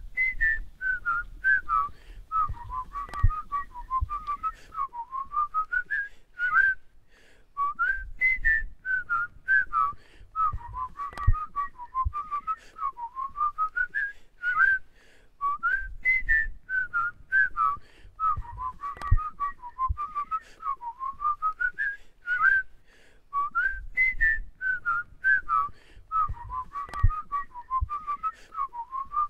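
A person whistling a short melody, the same phrase repeated about every eight seconds, over faint low thumps and clicks.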